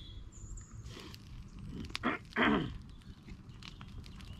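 An animal calling twice: two short calls in quick succession about two seconds in, each falling in pitch.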